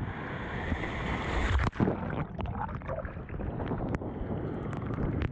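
Breaking surf and water sloshing around a camera held at the water surface, with wind on the microphone. About two seconds in the noise cuts out and jolts as the camera dips, then gives way to lighter sloshing with many small splashes and bubble crackles.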